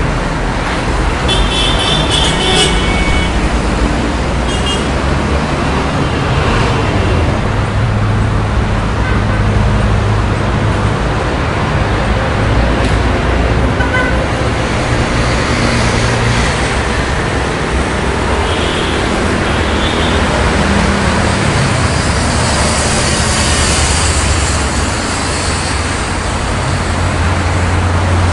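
City street traffic: cars and buses passing with a steady engine rumble that swells and fades as vehicles go by. A short high-pitched tone sounds about one to three seconds in.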